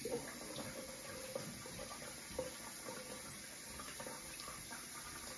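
Bathroom sink tap running steadily, with light splashing as lather is rinsed off the face.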